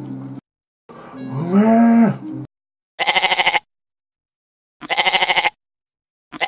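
A loud tone of about a second and a half that rises and falls, then a goat bleating three times, each bleat a quavering baa about half a second long, with dead silence between them.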